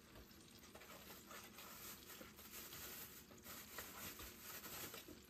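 Near silence: faint room tone with a few faint, soft small noises.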